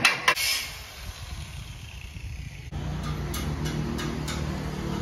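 A motor running with a steady low hum and a regular tick about three times a second. It comes in suddenly a little past halfway, after quieter steady background noise.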